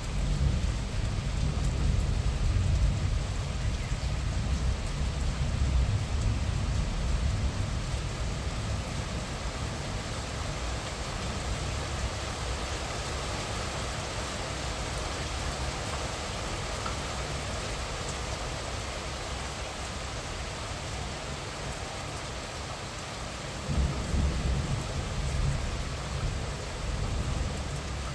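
Moderate rain falling steadily, picked up by a mobile phone's microphone. A low, uneven rumble swells in the first few seconds and again near the end.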